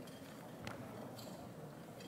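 Quiet hall room tone with two faint, short clicks about half a second apart: small handling noises at a lectern.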